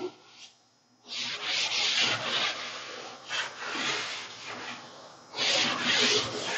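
Chalkboard duster rubbed back and forth across the board, wiping chalk writing off in repeated scrubbing strokes. The strokes begin about a second in, ease off briefly, then grow louder again near the end.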